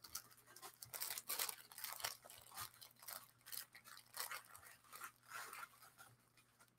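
Faint, irregular crinkling and crackling of plastic jewelry packaging being worked open by hand.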